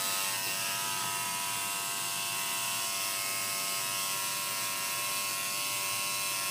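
Tattoo machine buzzing steadily while needling ink into the skin of a wrist.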